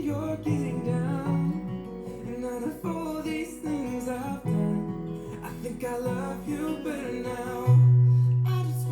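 A pop song's guitar-led instrumental passage played back through Hivi Swan D100 desktop speakers. A deep bass note comes in loudly near the end.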